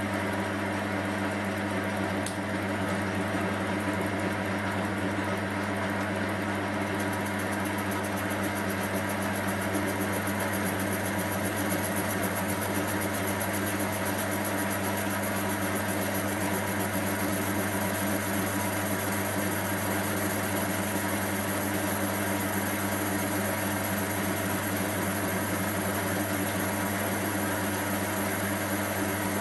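Small metal-turning lathe running steadily at about 450 RPM, its motor and gearing giving a steady hum with several steady tones. A high-speed steel tool takes a light, fine-feed cut on an aluminium die-grinder nose held in the three-jaw chuck. The high hiss brightens about seven seconds in.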